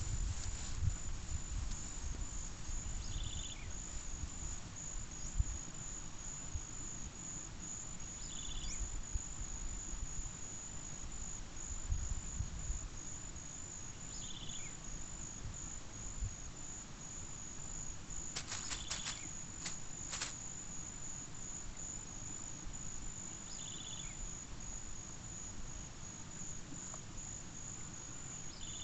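Steady high-pitched insect trill, with a short chirp repeating about every five seconds and a low rumble underneath.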